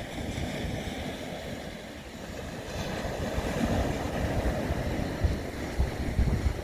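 Small waves breaking and washing up onto a shingle beach, with wind buffeting the microphone in irregular low thumps that grow stronger in the second half.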